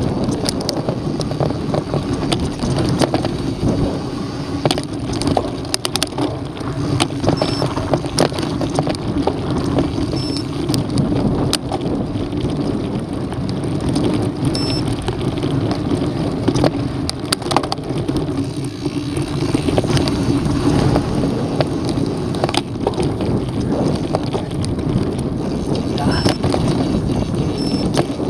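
Mountain bike ridden fast over a rough dirt trail: tyres rolling on packed dirt and loose stones, with frequent clicks and rattles from the bike over bumps, and wind on the microphone.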